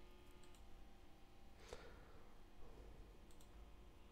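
Near silence: room tone with a few faint computer mouse clicks, the clearest a little under two seconds in.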